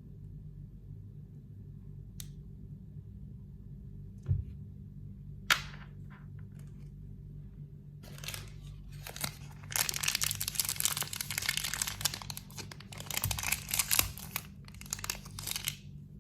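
Packaging being crinkled and torn open by hand: a couple of sharp clicks, then about eight seconds of continuous crinkling and tearing in the second half.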